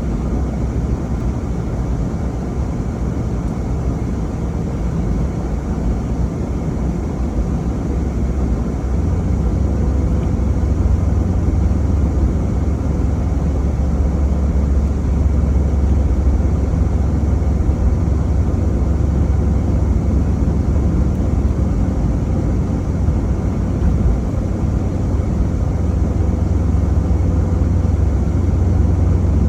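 Car being driven: a steady low rumble of engine and tyres on the road, growing louder about nine seconds in.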